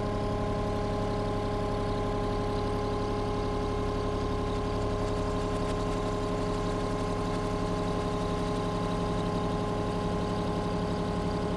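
Eagle ETB90 tire baler's power unit running steadily, a constant drone with a steady whine over it.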